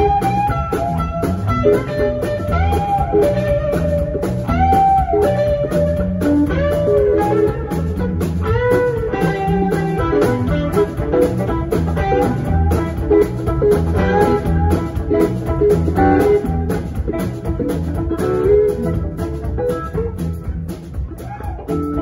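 Live rock band playing: an electric guitar lead line of sustained, bending notes over bass guitar and drum kit.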